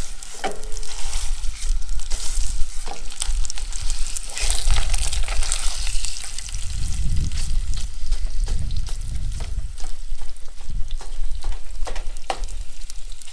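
Sausage frying in hot oil in a pot, sizzling, while a spatula breaks it apart and stirs it, with many short scrapes and clicks against the pot. A low rumble runs through the middle.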